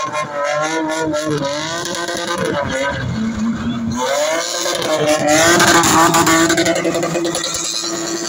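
Spinning car's engine revving hard with tyres screeching on tar as it spins, the revs climbing about halfway through and then held steady and high.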